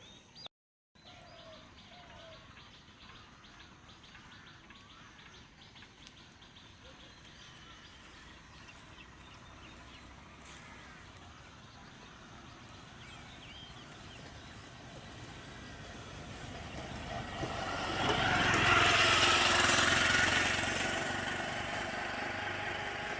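Quiet rural outdoor ambience with faint bird chirps, then a motor vehicle comes up and passes, growing loud a few seconds before the end and fading away again.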